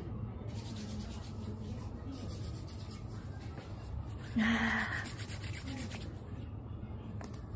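Soapy hands rubbing together in quick repeated strokes over a steady low hum, with a brief louder sound about four and a half seconds in.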